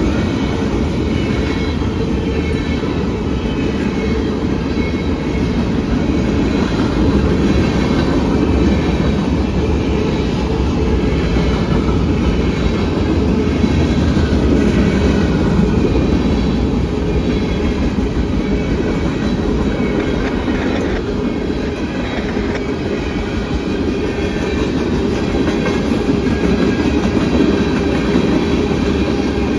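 A train rolling past on the rails, with steady, loud wheel-on-track noise and no let-up.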